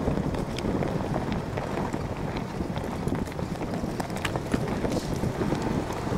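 Jeep driving over a rocky off-road trail: a steady low rumble with irregular clacks and knocks of rocks under the tyres.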